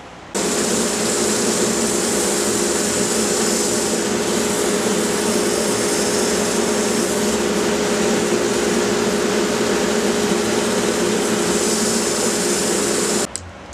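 Wood lathe motor running steadily while sandpaper hisses against the spinning pecan blank, with a steady hum under the hiss. The noise cuts in just after the start and stops abruptly near the end.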